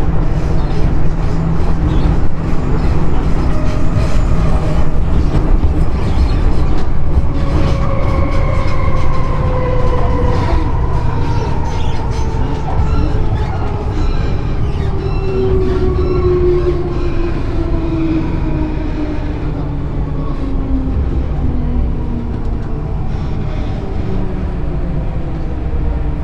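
MTR M-train (Metro-Cammell electric multiple unit) running, heard from inside the car, with a heavy low rumble and clicks from the wheels on the track. About eight seconds in, a motor whine sets in and falls steadily in pitch as the train slows for a station.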